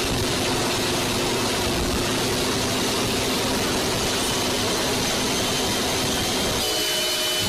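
A train running along the track: a steady, loud rumble of engine and running noise. A little before the end the low rumble drops away and a few thin steady tones come in.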